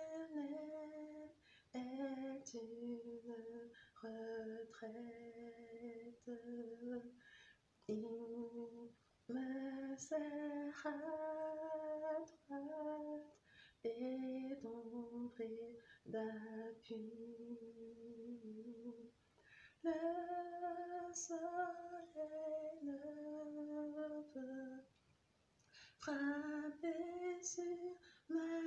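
A woman singing a slow hymn melody unaccompanied, in phrases of long held notes with short pauses for breath between them.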